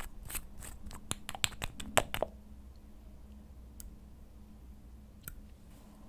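A quick run of small, sharp clicks from hands handling slime and its plastic containers, over about two seconds, then a quiet stretch with two faint clicks later on.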